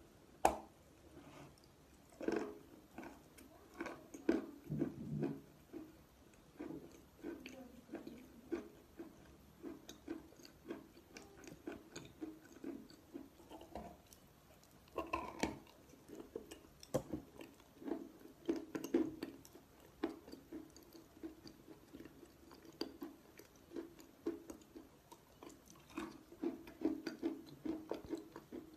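Biting and chewing of a soft, moist white clay and chalk paste: an irregular run of wet chews and short clicks, with no steady rhythm.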